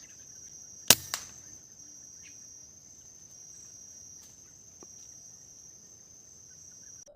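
An air rifle shot: one sharp, loud crack about a second in, followed a quarter second later by a fainter snap, over the steady high-pitched drone of insects.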